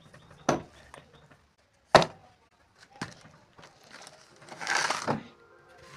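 Handling noise as small objects are set down by hand: two sharp knocks and a lighter one, then a short rustling scrape about four and a half seconds in as a plastic tub is moved.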